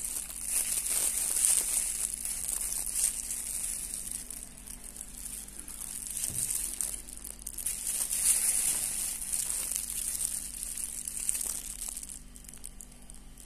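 Thin plastic glove crinkling close to the microphone as the gloved fingers turn a coin, an uneven crackling rustle that swells about a second in and again around eight seconds, then dies down near the end.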